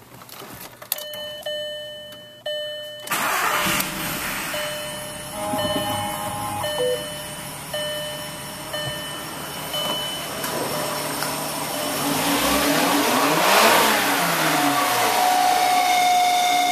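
A 2001 VW Jetta VR6's narrow-angle V6 engine is running, with a short beep about once a second over it for several seconds, then a rev that rises and falls. Near the end a steady howling tone sets in, one of the unexplained noises the owner is trying to identify.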